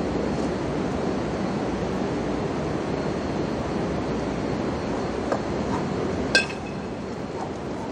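Steady city background rumble. About six seconds in, two 20 kg cast-iron kettlebells give a single sharp metallic clink with a brief ring as they are cleaned up to the chest rack and knock together.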